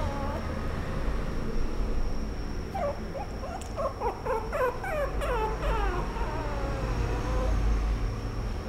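Puppy whimpering: a quick run of short, high whines starting about three seconds in, then one longer whine falling in pitch, over a steady low hum.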